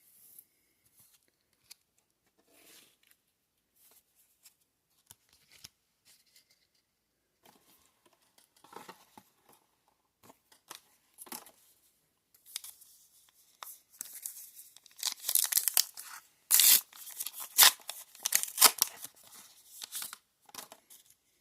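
Trading-card booster pack wrapper being torn open and crinkled: faint handling noises at first, then a loud run of ripping and crinkling in the last third.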